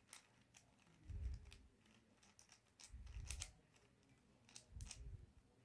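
A plastic 5x5 Rubik's cube being turned by hand: quiet clicks of the layers snapping round, in three short flurries, each with a soft thump of the cube shifting in the hands.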